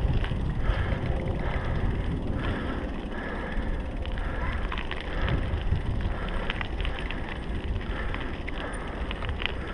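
Mountain bike rolling along a tarmac lane, recorded on a GoPro: wind rumble on the microphone and tyre noise, with scattered clicks and rattles from the bike over bumps.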